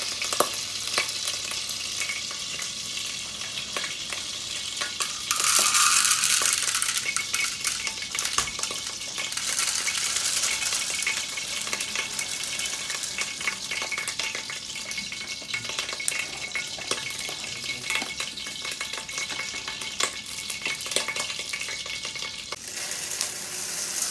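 Hot oil and butter sizzling in a pan with popcorn kernels just added and stirred through, with many small clicks and scrapes against the pan. The sizzle swells louder about five seconds in and again around ten seconds in.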